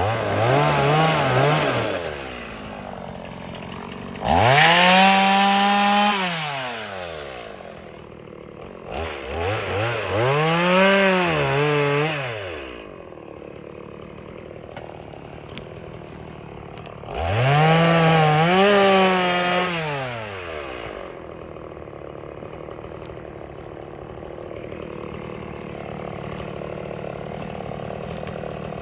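Stihl MS180 two-stroke chainsaw cutting firewood. It revs up to full throttle four times, holds there for two to three seconds each time, then falls back to idle. It idles steadily through the last several seconds.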